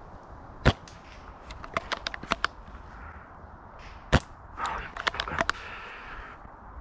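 Airsoft guns firing: two loud, sharp single shots about three and a half seconds apart, with quick strings of fainter shots and clicks between and after them.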